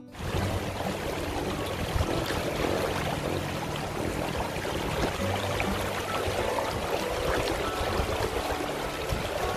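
Shallow, fast river rushing over a rocky bed in white-water riffles: a steady, continuous sound of churning, splashing water.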